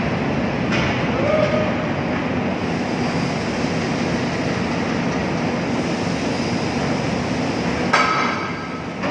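Steady mechanical rumble of a terminal tractor's diesel engine running close by, with a sudden louder noise about eight seconds in.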